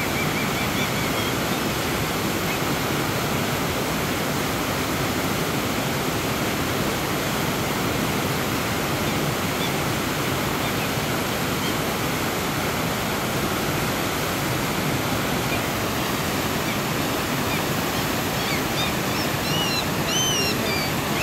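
Steady rushing of white water pouring over a wide, low rock ledge of a river waterfall.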